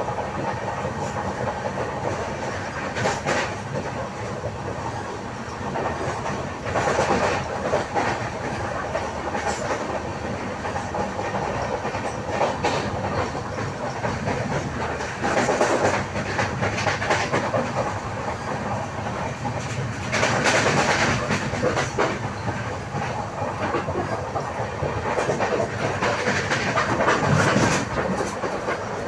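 Lalbagh Express passenger coaches rolling past with a continuous clatter of wheels over rail joints, many sharp clicks and knocks, and louder surges every several seconds. Among the knocks is the repeated bang of a flat spot on one of the wheels.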